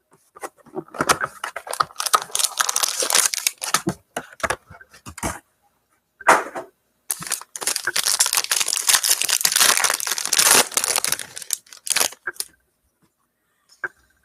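Plastic shrink wrap being torn off a sealed box of football cards and crinkled, in several stretches of scratchy rustling with short pauses, stopping about two seconds before the end.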